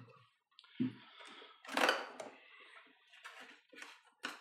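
Hands rummaging in a cardboard box: packaging rustling and light knocks as items are handled, with a louder rustle about two seconds in and a sharp click near the end.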